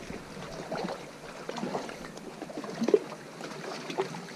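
Small waves lapping against the rocks and a paddle board floating beside them, with irregular soft slaps and knocks, one a little louder about three seconds in.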